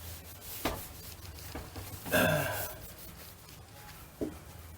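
Quiet rubbing and handling at a refrigerator door's rubber seal as petroleum jelly is wiped on, with a light knock near the start, another near the end, and a short sound that falls in pitch about two seconds in.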